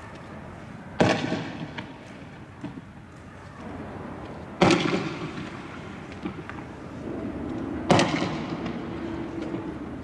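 Three loud explosive bangs about three seconds apart, each trailing off in an echo. A steady low hum runs underneath in the second half.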